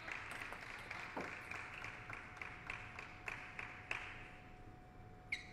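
Faint scattered clapping and applause from spectators after a table tennis rally, dying away about four seconds in. A short high squeak near the end.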